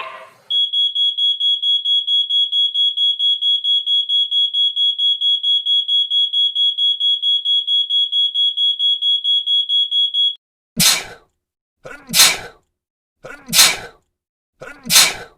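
Smoke-alarm beeping: one high electronic tone pulsing rapidly, about four or five beeps a second, for about ten seconds. It stops, and near the end come four short sneezes about a second and a half apart.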